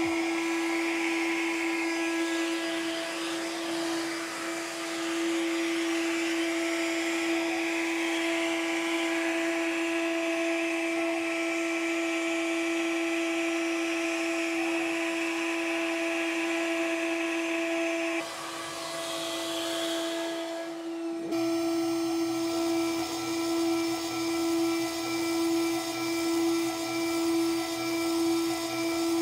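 CNC router spindle running steadily at 20,000 rpm with a high whine, as an end mill cuts POM plastic at 1500 mm/min: a facing pass, then adaptive clearing at the full 8.5 mm depth. The cutting sound drops out briefly about 18 seconds in and returns a few seconds later.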